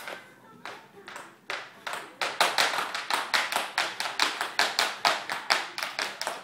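Sharp rhythmic smacks, a few spaced about half a second apart, then about two seconds in a louder, fast, even run of about five a second.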